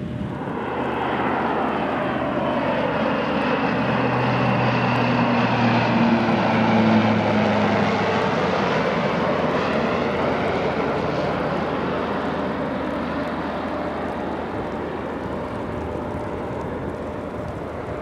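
Twin-turboprop commuter plane on approach passing low overhead, its propeller drone swelling to a peak about seven seconds in and then slowly fading.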